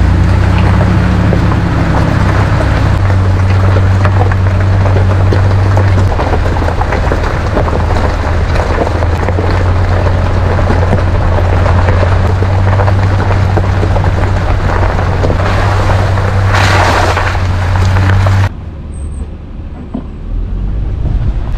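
Toyota Land Cruiser 80 series' 4.5-litre straight-six running at steady revs under a loud rushing noise. The noise swells briefly near the end, then cuts off abruptly to a quieter engine sound.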